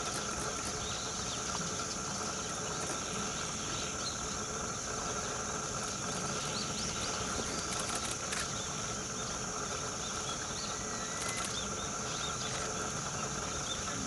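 Outdoor ambience: a steady high hiss with faint, scattered bird chirps and a few light clicks.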